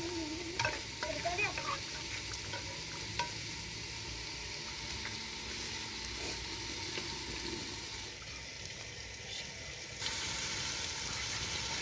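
A metal spoon stirring and scraping in an aluminium pot of red beans in tomato masala over a wood fire. Then a steady sizzling hiss from the cooking pot, louder near the end.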